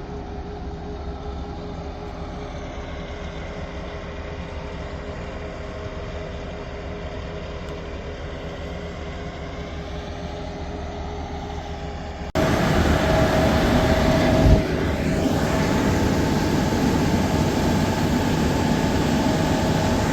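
Farm truck engine running steadily. About twelve seconds in, the sound switches abruptly to a louder engine run with a steady whine, and a single knock follows about two seconds later.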